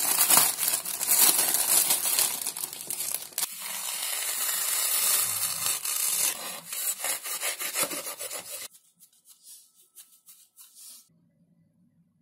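Crinkling plastic bag being pulled open around a pack of foam sponges, then the rasping of a foam sponge being cut, which stops about nine seconds in and leaves only a few faint scratches.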